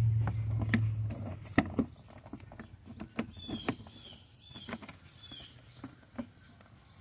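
Scattered clicks and knocks of plastic air-intake airbox parts being fitted onto a car engine. A bird chirps several times in the middle, and a low hum stops about a second in.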